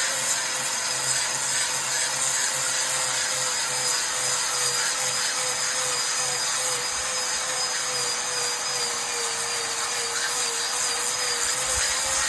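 Electric polishing machine running steadily against laterite stone, a steady motor hum that wavers slightly in pitch under a constant gritty hiss of abrasive on stone.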